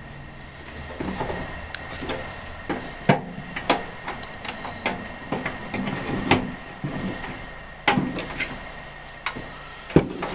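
Irregular clicks, light knocks and scraping as hands work a microwave oven's lamp socket, with its broken bulb, loose from its mount among the wiring inside the open chassis. The sharpest clicks come about a second apart, with a cluster near the end.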